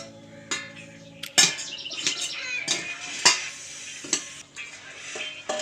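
A metal spoon clinking and scraping against a cooking pan while stirring, in a string of sharp, uneven knocks.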